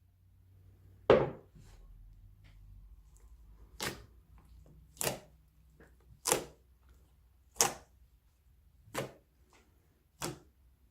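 Slime being worked by hand, giving sharp pops about every 1.3 seconds, seven in all, the first the loudest.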